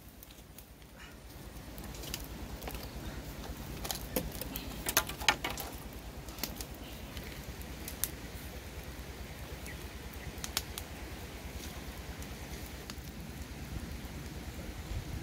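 Open wood fire crackling, with scattered sharp pops over a steady low background noise; the loudest pops come in a cluster about four to five seconds in.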